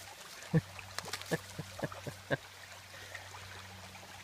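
A quick string of about seven short knocks and taps, the first the loudest, over a steady low hum.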